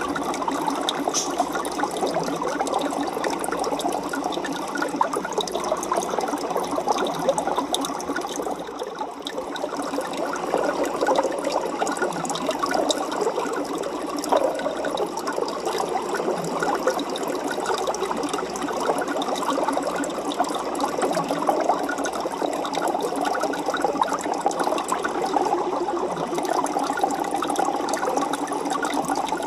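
Aquarium water bubbling and splashing steadily, a dense crackle of many small bubbles, dipping briefly about a third of the way in.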